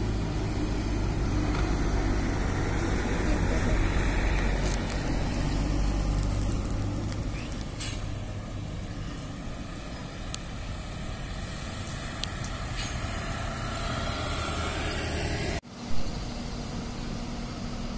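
Steady low rumble of idling diesel coach engines across the yard, easing after the first several seconds, with a motorcycle riding past. About two seconds before the end the sound drops out suddenly and a short thump follows.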